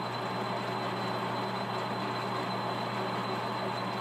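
Monarch metal-working lathe running steadily, a constant machine hum with a thin high whine above it.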